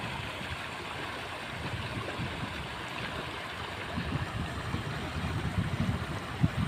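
Steady rushing of running floodwater, with wind buffeting the microphone in low gusts that come more often from about four seconds in.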